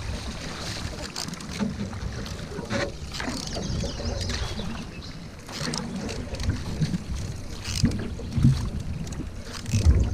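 Single-blade canoe paddle strokes pulling through water, with irregular splashes and water rushing past the hull, over wind buffeting the microphone.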